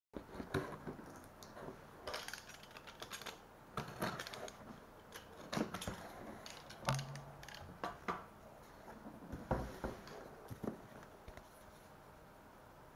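Cardboard shipping box being cut open and unpacked by hand: irregular scrapes, taps and rustles of cardboard and packaging, quieting near the end.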